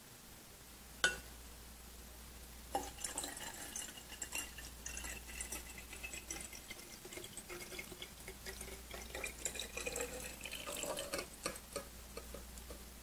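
Potassium iodide solution being poured into a glass Erlenmeyer flask of lead nitrate solution: a single glass clink about a second in, then faint trickling and splashing of liquid with small irregular ticks through most of the rest.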